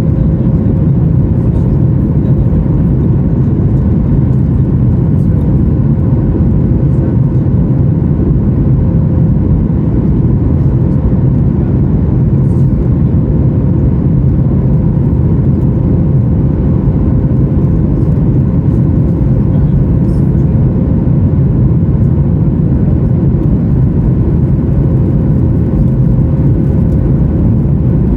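Steady cabin noise of a Boeing 737 MAX 9 airliner in the climb after takeoff: a loud, even, deep rumble of engines and airflow, with a steady hum running through it.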